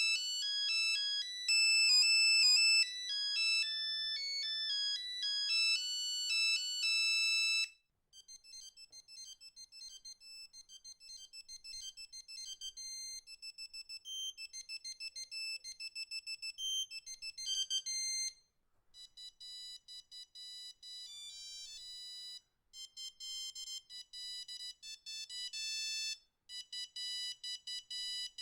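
Nokia 3210 mobile phone playing its built-in monophonic ringtones one after another: several short beeping tunes, one note at a time, with a brief pause between tunes. The first tune is the loudest, and the later ones are higher and more staccato.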